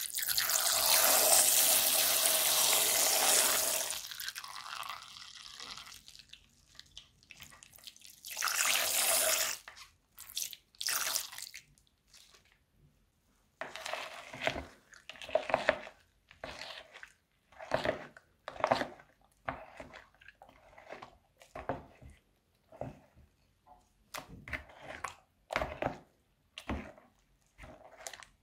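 Clear liquid pouring in a thin stream from a snipped plastic piping bag into a bowl of glue and colours; the pour runs for about four seconds, with a second shorter pour a few seconds later. Then a plastic spatula stirs the thickening slime in wet, squelching strokes, irregular and roughly one a second.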